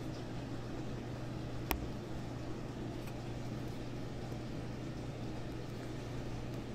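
Outdoor air-conditioner condenser unit running with a steady hum. A single sharp click comes a little under two seconds in.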